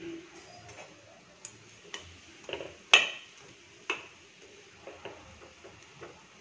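Metal kitchen tongs clinking against the side of a steel pot while Maggi noodles are broken up and stirred in boiling water: a few irregular sharp clicks, the loudest about three seconds in, over a faint steady hiss.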